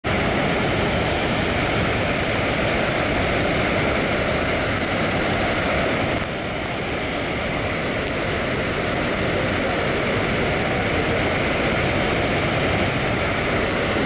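Victoria Falls' Main Falls: a steady rushing of a huge mass of falling water, dipping slightly in level about six seconds in.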